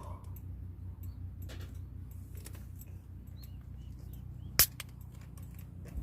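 A single sharp snap about four and a half seconds in, over a steady low rumble with scattered light clicks and a few faint bird chirps.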